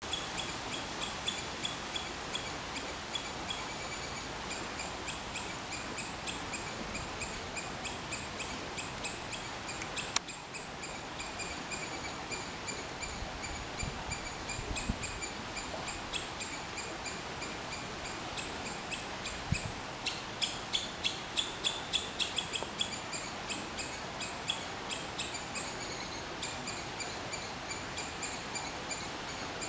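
Three-striped palm squirrel calling: a long series of short, high, bird-like chirps repeated steadily, growing louder and quicker about twenty seconds in. A single sharp click about ten seconds in.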